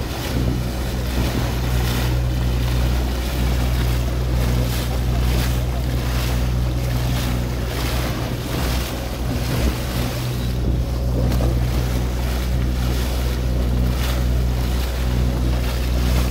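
A boat's engine running with a steady low drone, under the rush and splash of the bow wave against the hull, with wind buffeting the microphone.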